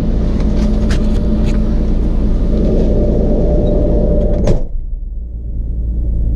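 Steady hum of an idling engine with a few light clicks, then a vehicle door shut about four and a half seconds in, after which the hum goes muffled.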